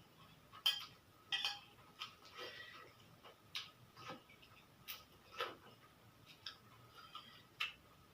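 Close-up eating sounds of someone eating noodles: irregular sharp mouth clicks and wet smacks of chewing, roughly one a second.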